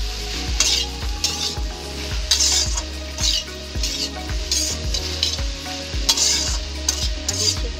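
Metal ladle scraping and turning chopped okra around a metal kadhai, about ten quick scraping strokes, over the sizzle of the okra frying in mustard oil.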